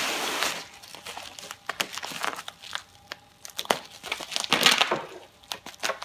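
Bubble wrap crinkling and rustling in irregular bursts as it is handled and pulled off a boxed network switch, with scattered small clicks.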